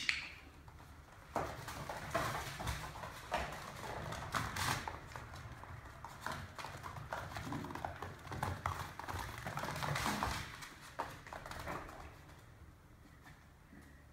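Chinese Crested puppies' claws and paws clicking and scrabbling on a laminate floor as they run and play-fight, an irregular run of light taps.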